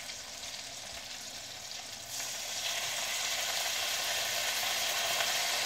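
Kielbasa frying in butter in a pan, sizzling steadily. About two seconds in the sizzle jumps louder and brighter as wet sauerkraut goes into the hot pan and spatters.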